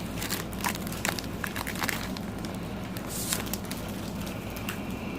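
Foil trading-card pack wrapper crinkling and crackling as it is pulled open and the cards are slid out, busiest in the first couple of seconds, with a short swish about three seconds in, over a steady low hum.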